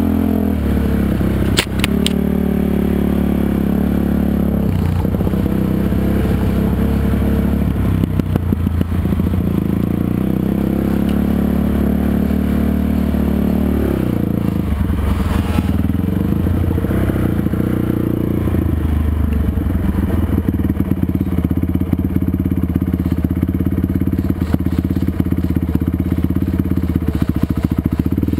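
Sport quad (ATV) engine running under throttle on a rough dirt trail, its note rising and falling as the throttle is worked, with the machine rattling over bumps and two sharp knocks about a second and a half in.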